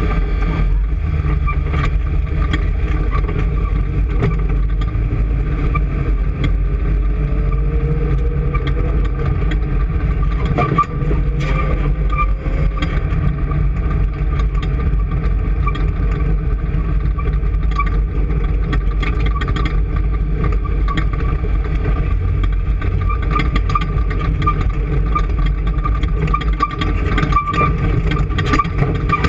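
An engine running steadily at a constant speed: a loud low rumble with a thin steady whine above it.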